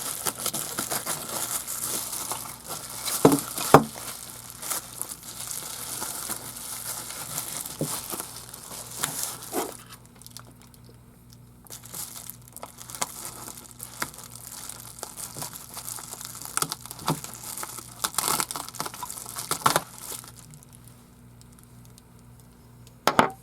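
Packaging being crinkled and torn off as a 3D printer's build plate is unwrapped, with a few sharper knocks as it is handled and short quieter pauses.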